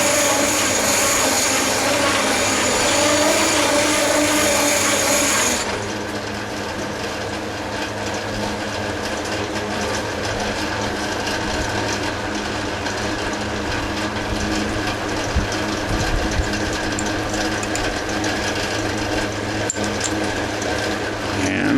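Metal lathe running. For the first six seconds a louder, rougher sound with a high steady whine rides over it and then cuts off sharply, leaving the steady hum of the machine.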